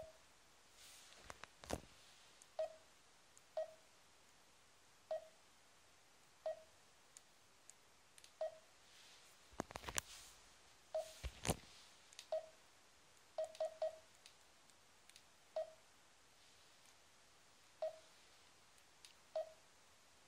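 Garmin Dezl 760 LMT sat-nav touchscreen giving a short key beep for each tap on its menu buttons, about fourteen beeps at uneven intervals, three in quick succession near the middle. Louder clicks and rubs from the device being handled come about two seconds in and again around ten to eleven seconds in.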